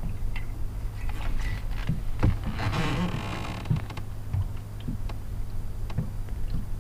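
Clicks and rattles of a handheld lip-grip fish scale being clamped onto a largemouth bass's jaw and lifted to weigh it. A brief rushing scrape comes about halfway through, over a steady low hum.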